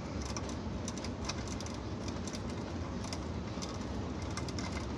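Light, irregular clicks and ticks of stripped copper wires and hand tools being handled, over a steady low rumble.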